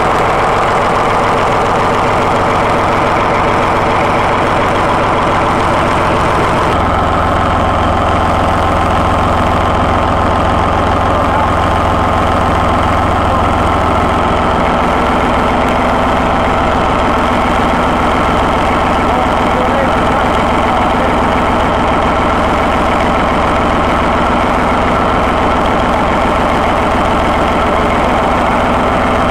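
Paxman 6YJXL diesel engine of Class 14 locomotive D9531 running steadily, a replacement power unit on its first day of running. The tone changes about seven seconds in, with a stronger low hum, and shifts again about halfway through.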